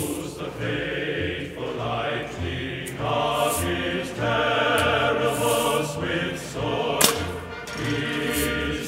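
A choir singing a national anthem over backing music. About seven seconds in comes a single sharp crack as an aluminium can is shot with a Daisy Red Ryder BB gun.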